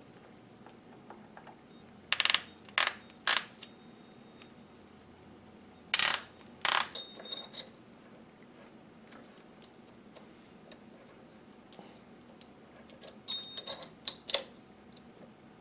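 Small steel parts of a hand brace's chuck clinking as they are handled: three sharp metallic clicks about two seconds in, two louder ones around six seconds, the second leaving a brief ring, and a cluster of lighter clinks near the end.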